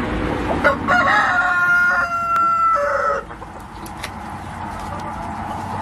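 Rooster crowing once, a single cock-a-doodle-doo about two and a half seconds long starting just under a second in.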